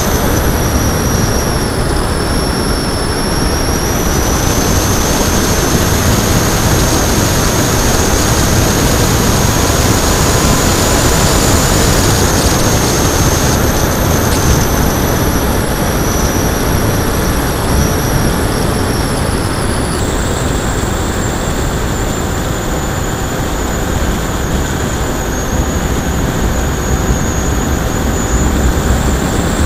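Electric RC plane's Turnigy D3536 brushless motor and APC-style 8x6E propeller running in flight, a high whine that drifts slowly up and down in pitch, over heavy wind rush on the onboard camera's microphone.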